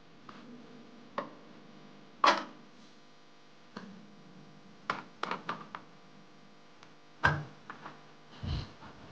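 Irregular knocks and clicks of hard objects being handled, about a dozen in all, some in a quick cluster around five seconds in; the loudest comes a little over two seconds in and another about seven seconds in.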